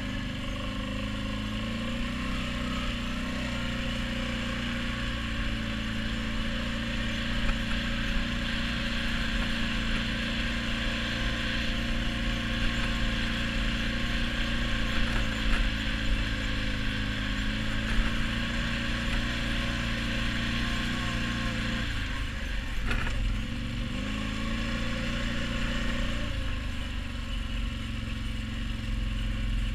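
ATV engine running steadily under way. About two-thirds through its note drops away for a moment with a single knock, then rises again, and it settles lower near the end.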